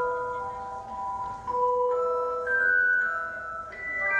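Performance music: a slow melody of ringing, bell-like single notes that overlap as they sustain, with fuller chords coming in near the end.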